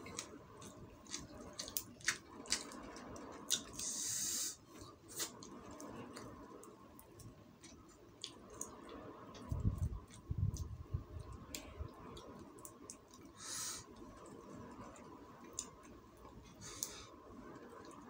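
Close-up mouth sounds of eating fried quail by hand: wet chewing, lip smacks and many small clicks as fingers tear the meat from the little bones. Three short hissing sounds and a few low thuds about ten seconds in.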